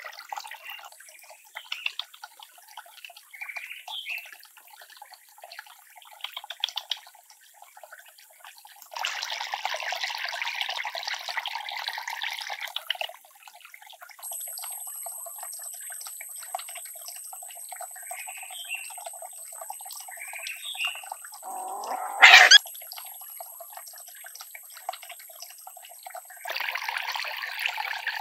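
Water splashing and trickling from a small bamboo-pipe fountain into a pond, louder in two stretches. Puppies whimper briefly a few times, and one gives a louder yelp about two-thirds of the way through.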